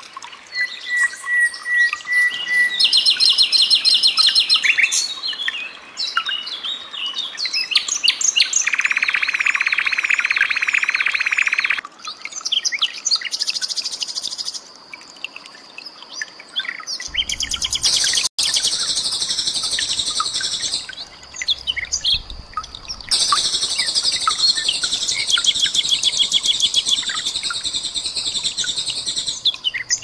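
Common nightingale song: a varied string of loud phrases of rapidly repeated notes, trills and whistles, mostly high-pitched. The phrases change abruptly, with sudden cuts between them.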